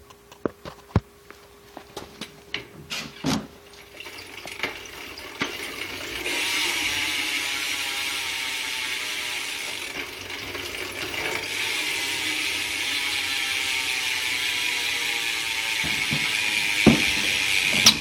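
Verde Cadet BMX rear hub ratcheting as the wheel freewheels. A few separate clicks come first, then from about six seconds in a fast, continuous clicking buzz.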